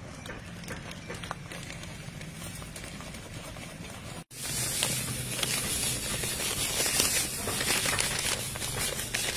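A spoon stirring batter in a steel bowl with soft scraping and clinking. Just after four seconds a louder crackling, rustling hiss takes over as breadcrumbs are poured from a plastic bag onto a metal plate.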